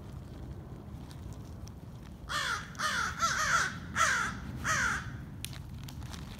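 American crows cawing: a quick run of about six harsh caws, each falling in pitch, lasting about three seconds.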